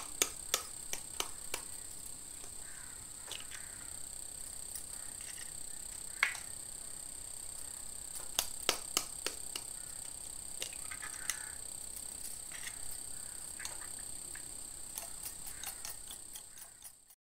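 Eggs cracked into a glass bowl and beaten with a steel spoon: scattered sharp taps and clinks of shell and spoon against the glass, in clusters toward the middle and near the end. A steady high-pitched whine runs underneath.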